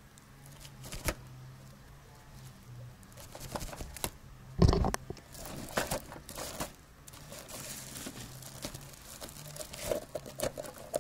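Woven plastic sack and the plastic bags inside it rustling and crinkling as the sack's tie is undone and it is pulled open, with one heavier thump about four and a half seconds in.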